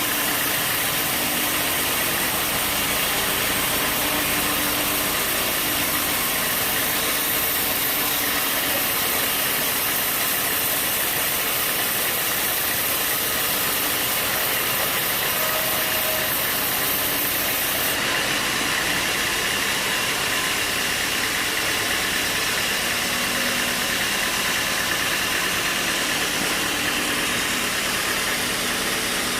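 Sawmill machinery running steadily, a constant engine-like noise with a high hiss that drops away suddenly about two-thirds of the way through.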